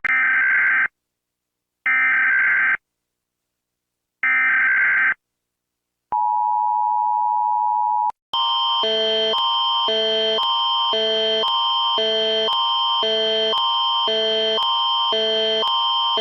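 Recreated emergency alert tones: the US Emergency Alert System's three short bursts of SAME header data with a second of silence between them, then about two seconds of its steady two-tone attention signal. About eight seconds in, Canada's Alert Ready attention signal starts: a steady high tone over a lower pattern of alternating tones that repeats about once a second.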